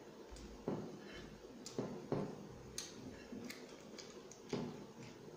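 Eating sounds from hand-eating mutton biryani: fingers working rice on a clear glass plate, giving a handful of light, irregular clicks and taps against the glass, along with chewing.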